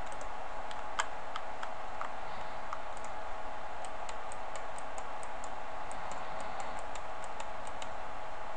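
Light, irregular clicking from a computer mouse and keyboard in use, a few clicks a second, over a steady electrical hum.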